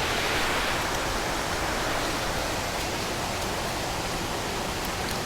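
Water rushing steadily over a spillway.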